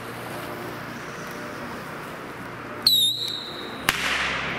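Panda mini rocket taking off with a shrill whistle that dips slightly and then holds for about a second, about three seconds in. A sharp bang follows about a second later as its charge explodes, with a fading echo through the forest.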